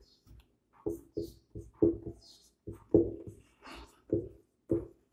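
Dry-erase marker writing on a whiteboard: a run of short squeaking strokes, about two a second.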